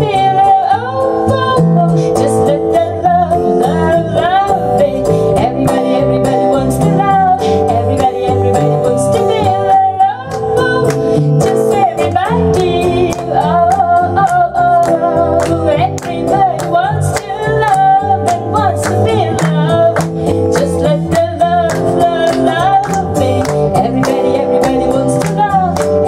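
Live acoustic band music: a woman singing with strummed acoustic guitar and an electric bass line underneath.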